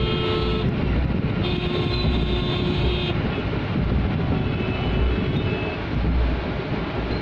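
Low, steady rumble heard inside a car's cabin, with long, steady pitched tones sounding from outside, twice in the first three seconds and more faintly later.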